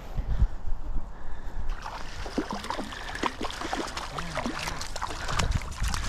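Stream water gurgling and splashing close to the microphone, with splashes coming thick and fast from about two seconds in. Low thumps of wind or handling on the mic come near the start and near the end.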